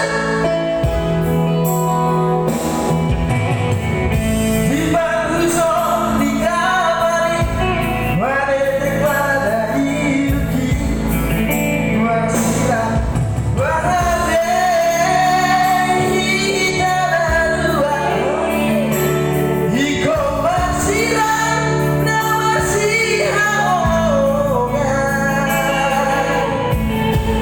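A song: a singing voice carrying a melody over steady instrumental accompaniment.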